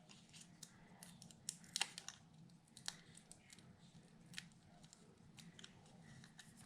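Faint rustling and scattered light ticks of paper die-cut pieces being handled and taken off.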